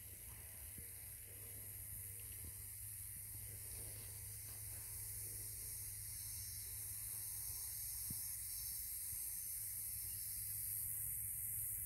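Steady high hiss of outdoor ambience, with a low, fluttering rumble of wind on the microphone.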